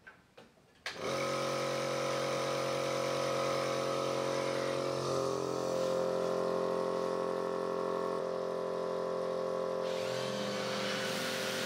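Electric vacuum pump of a Virutex SVE670 vacuum clamp switching on about a second in and then running steadily, its tone shifting a few times as it holds a wooden board down by suction.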